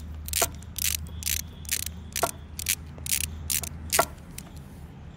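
Ratchet wrench clicking in an even rhythm, about two clicks a second, as it is worked back and forth loosening a bolt.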